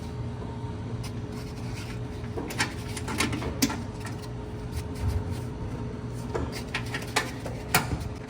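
Scattered sharp clicks and knocks, several in the second half, over a steady low hum.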